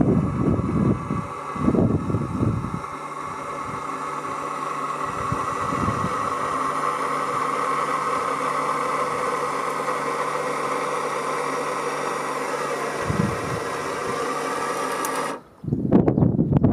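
Electric power-tilt motor of a Suzuki outboard running with a steady whine as it tilts the outboard up. It starts about three seconds in and cuts off abruptly near the end, with wind buffeting the microphone before and after.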